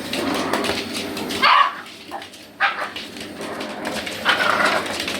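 Miniature pinscher barking and yapping in short bursts at a vacuum cleaner. The vacuum's steady hum stops about a second and a half in.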